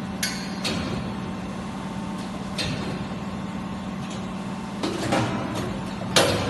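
CNC box-tube cutting and punching machine running with a steady hum, struck through by several sharp metallic impacts at irregular intervals.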